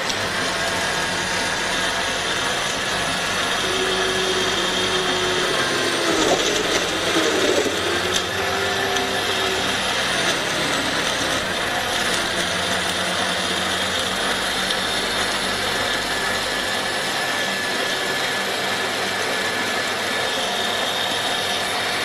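Blender attachment on a stand kitchen machine running, blending frozen strawberries and watermelon with juice into a thick smoothie. It starts suddenly and runs steadily, with its pitch dipping and coming back up about six to eight seconds in.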